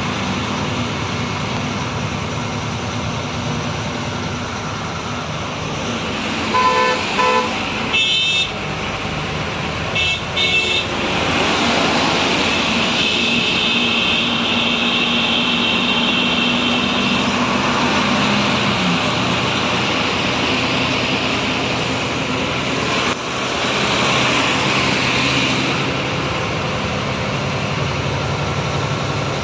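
Steady engine and road noise from inside a vehicle driving on a wet road. A vehicle horn sounds in short toots about seven seconds in and again around ten seconds.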